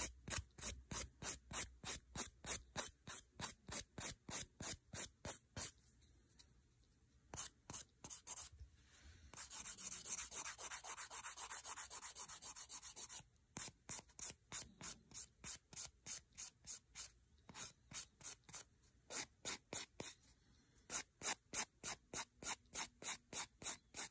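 A hand-held 150-grit nail file rasps back and forth across hard building gel on a fingernail, filing the gel off. The strokes come at about three a second, with a couple of short pauses, and there is a run of faster, almost continuous filing around the middle.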